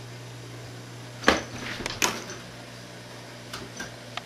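Room tone with a steady low hum, broken by a sharp knock about a second in, a few more knocks and clicks around two seconds, and fainter ticks near the end.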